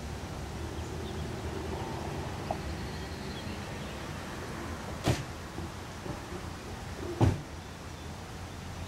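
Steady low outdoor background rumble, broken by two short sharp knocks about two seconds apart, the second one louder.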